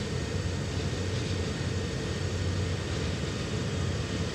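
Steady low engine drone of a train running out of sight, with a constant hum over it.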